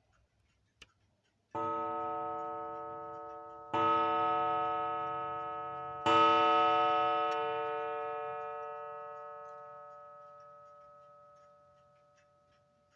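Thick wire gong struck three times, each strike louder than the last, with rich, sustained ringing tones that fade slowly away.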